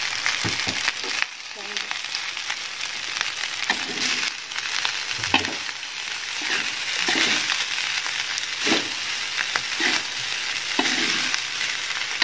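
Fried rice sizzling in a metal wok while a metal spatula stirs and scrapes through it in repeated strokes, roughly one a second.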